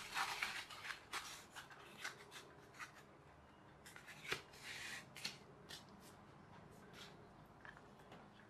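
Faint rustling and scraping of a halved polystyrene foam pizza tray being handled, bent and slid across a cutting mat, densest in the first couple of seconds, with a few light taps later on.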